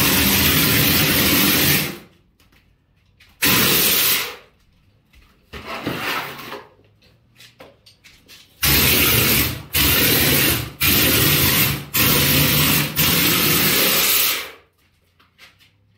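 Hopper bucket plaster sprayer blasting compressed air and mortar in bursts as its air valve is opened and closed: two long sprays and a short one, then a run of about five sprays with brief breaks between them.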